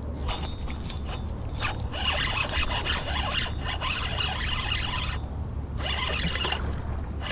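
Fishing reel being cranked: a fast, fine ratcheting click that stops for a moment about five seconds in, then starts again.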